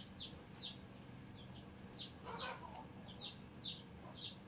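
Chicks peeping: a steady run of short, high chirps that fall in pitch, about two or three a second, with a brief lower sound about two seconds in.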